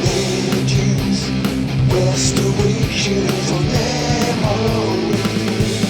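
Rock music with electric guitar and a steady drum beat, with some singing.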